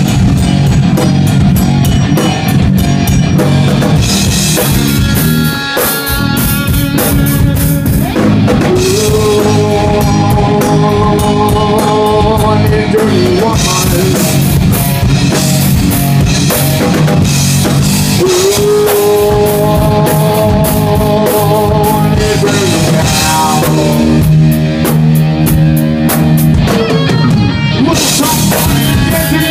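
Loud live rock band: a drum kit, electric guitar and a male singer, with two long held notes partway through.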